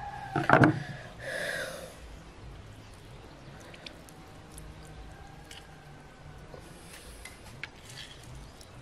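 Lemon halves squeezed by hand over a glass bowl of raw goose meat and onion, with a short wet squish and faint dripping of juice. The loudest sound is a couple of sharp knocks on the wooden cutting board about half a second in.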